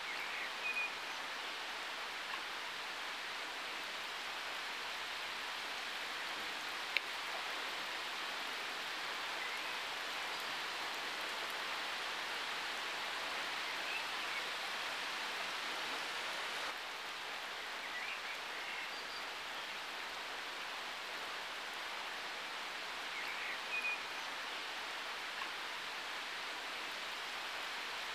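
Steady hiss of water, even throughout, with a few brief faint chirps and a single click about seven seconds in.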